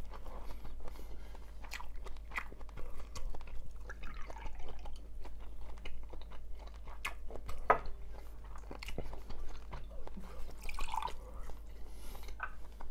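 A person chewing food, with irregular wet mouth clicks and small crunches and one sharper click about eight seconds in.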